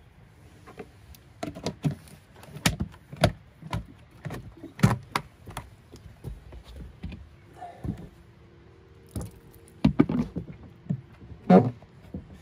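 White plastic fermenting bucket lid being pressed down onto the rim, an irregular string of plastic clicks and knocks, with a second cluster of clicks near the end as a plastic airlock is pushed into the rubber grommet in the lid.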